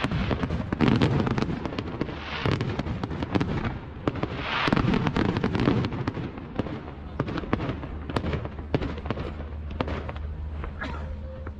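Aerial fireworks display: a rapid string of bangs and crackling reports, swelling into louder dense volleys in the first half and thinning out toward the end.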